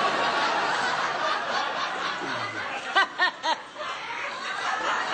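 Studio audience laughing, with one person's loud 'ha-ha-ha' standing out three times about three seconds in.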